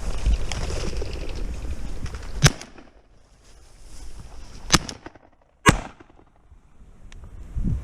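Three shotgun shots from a Benelli M2 semi-automatic shotgun, the first about two and a half seconds in and the next two about two seconds and one second after it. Wind rumbles on the microphone before the first shot.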